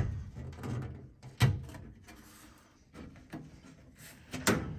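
Sheet-metal furnace access panel being taken off: clunks and rattles of the metal panel, with a sharp knock about a second and a half in, a few lighter clicks, and another knock near the end.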